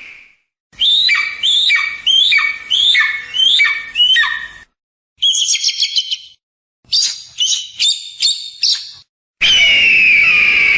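Eagle calls. First comes a series of about six high calls, each sliding steeply down in pitch. Then two bursts of rapid, high chattering notes, and near the end a long, loud, slightly falling scream.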